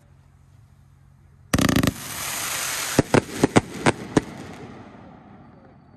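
A 100-shot "Raining Like Cats and Dogs" firework cake: after a lull, a loud blast of shots about a second and a half in, then a hissing crackle of bursting stars with about six sharp bangs that dies away.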